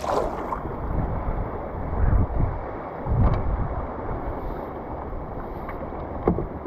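Wind buffeting the microphone in gusts, a rumbling rush with stronger bursts about two and three seconds in.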